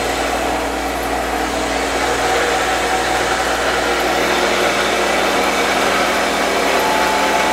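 CNC-converted wood lathe running steadily, its electric motor and spindle giving a constant hum with several steady tones over a machine rush.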